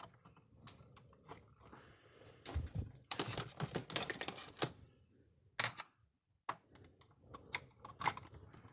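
Clicks, taps and rattling of hands working the wiring of an electric fence energizer, pulling the push-on wire terminals off a capacitor, busiest between about two and a half and four and a half seconds in.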